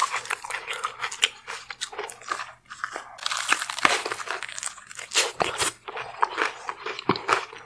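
Crunching and chewing as a person bites into a lobster tail coated in crushed Hot Cheetos, dense sharp crackles from the crunchy coating.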